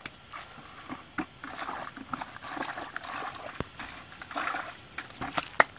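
Hands rustling and crinkling green leaves inside a plastic bucket, with scattered sharp taps and clicks; the loudest click comes near the end.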